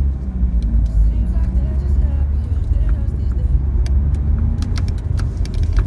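Mazda RX-8's 13B twin-rotor rotary engine running steadily while driving, a deep low drone whose pitch shifts slightly, with scattered light clicks.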